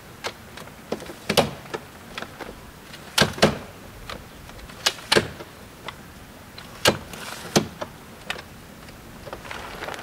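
An irregular series of sharp knocks and clicks, a few much louder than the rest, like hard objects being handled and set down.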